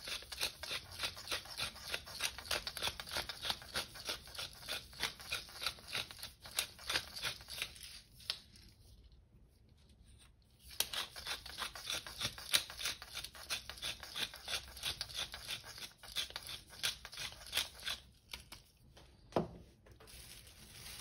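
Wooden pepper mill twisted by hand, grinding black pepper in quick, regular rasping clicks, which pause for a couple of seconds a third of the way in and then start again. Near the end comes a single knock.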